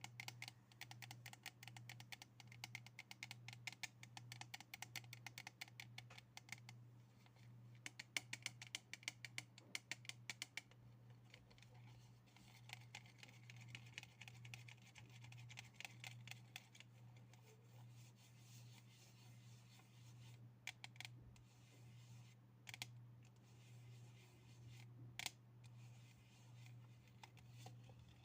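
Fast, light tapping on objects, many taps a second, becoming softer about ten seconds in and thinning to a few scattered taps in the last third. A steady low hum runs underneath.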